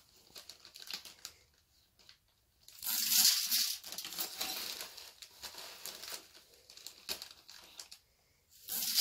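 Plastic zip-top bag crinkling as a measuring cup scoops wheat kernels. About three seconds in, a cupful of wheat pours into a galvanized metal pail with a loud rush of grain that trails off over several seconds. A second pour starts near the end.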